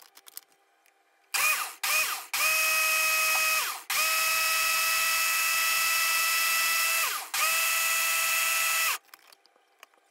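Ninja countertop blender motor blending soaked sea moss and water, in pulses. It starts with two short bursts, then three longer runs of a steady high whine, with the pitch sliding down in the brief dips between runs.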